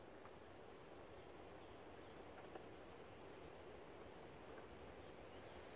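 Near silence: faint outdoor background hiss with a few faint high bird chirps.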